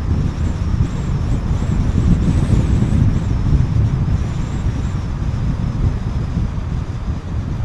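A car driving at road speed: a steady low rumble of tyre, engine and wind noise.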